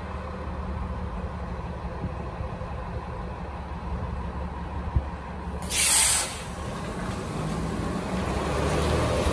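Articulated city bus idling, with a short click, then a loud hiss of air from its brakes about six seconds in. After it the engine note rises as the bus pulls away.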